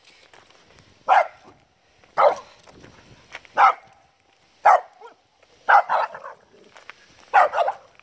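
Boston terrier barking repeatedly: about six sharp barks roughly a second apart, the later ones coming in quick pairs.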